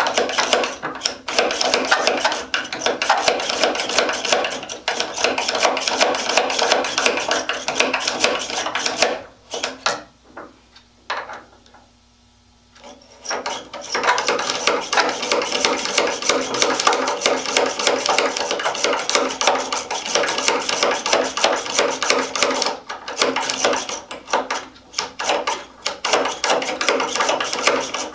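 A hand tool worked in quick strokes on a wooden leg vise makes a dense, rapid clicking. It stops for about four seconds partway through, then starts again.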